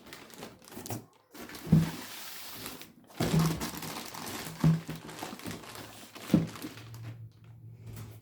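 Handling noise: four hollow thunks roughly a second and a half apart, with rustling between them, and a low hum near the end.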